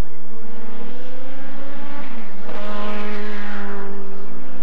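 Racing sedans' engines at full throttle, their pitch climbing as they accelerate; about two seconds in one drops in pitch as it goes by and a louder one passes close, its note rising again near the end.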